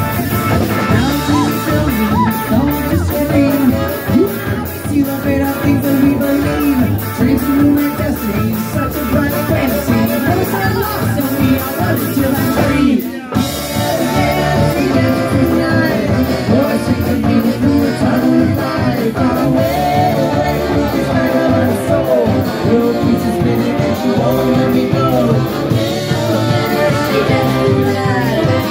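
Live band playing: a female vocalist sings over sousaphone, electric guitar, drum kit and saxophones, with a steady drum beat. The whole band stops for a brief break about halfway through, then plays on.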